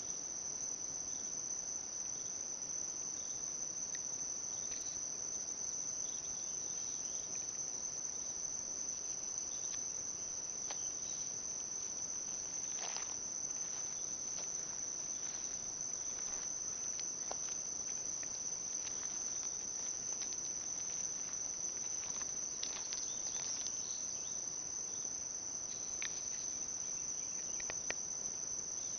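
A steady, high-pitched chorus of insects singing without a break, with a few faint brief sounds scattered through it.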